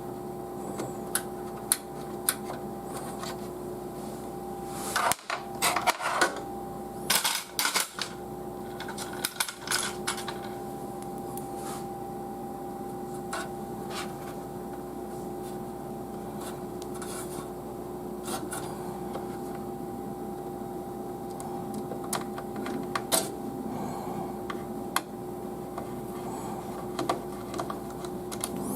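Scattered small clicks and taps of an M.2 NVMe SSD being handled, seated in its motherboard slot and fastened down, busiest about five to ten seconds in, over a steady hum.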